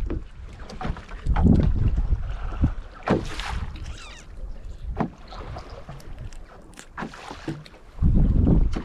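Wind buffeting the microphone in gusts, strongest about a second and a half in and again near the end, with a few sharp clicks and knocks in between.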